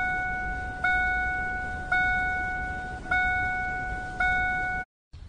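Car seatbelt warning chime dinging about once a second, each ding ringing out before the next, signalling an unfastened seatbelt. It stops suddenly just before the end.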